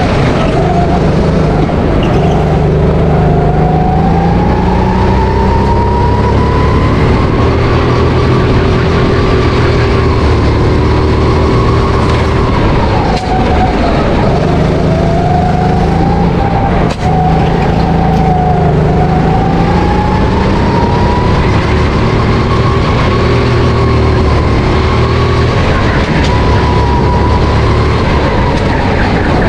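Honda GX270 single-cylinder four-stroke engine of a SodiKart RT10 rental go-kart running under throttle on track, heard onboard. Its pitch climbs along the straights and drops for the corners, with one sharp dip about halfway through before it climbs again.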